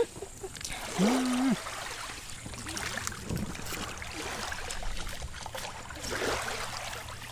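Water trickling and splashing gently, with faint scattered ticks. About a second in, a short hummed sound rises and holds for about half a second.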